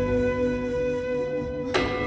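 Background music: a sustained flute-like melody over a steady low bass, with a new note coming in near the end.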